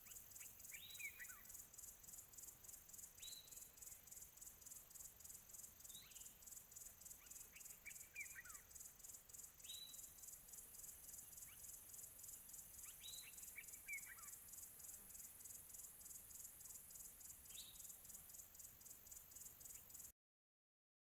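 A steady, evenly pulsing high-pitched insect chorus, with a bird giving short, quick down-sliding whistled calls every couple of seconds, some in twos and threes. Everything cuts off abruptly about a second before the end.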